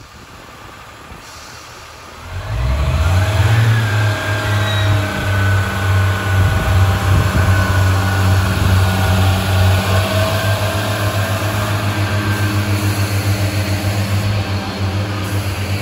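A train approaching, growing loud about two and a half seconds in and then running on with a steady low hum and a fainter whine above it.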